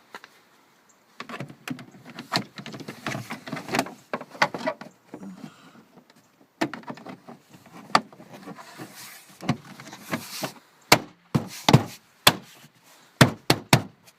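Plastic trim panel of a Toyota Sienna's rear liftgate being handled and fitted, with rattling and clattering as it is positioned. About eleven seconds in come several sharp hand taps as its clips are knocked into their holes.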